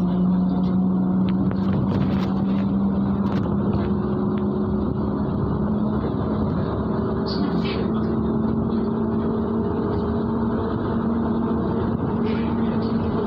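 MAZ-103 city bus heard from inside while under way: a steady engine and drivetrain hum over road noise. The hum rises slightly in pitch about six seconds in as the bus picks up speed. There are a few light rattles.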